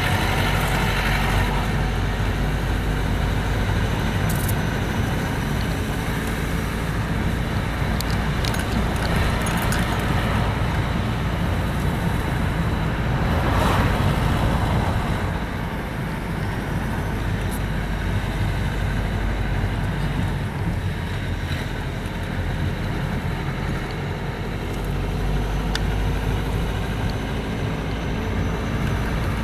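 Car interior noise while driving on an asphalt road: steady low engine and tyre rumble, with a brief louder swell of noise about halfway through.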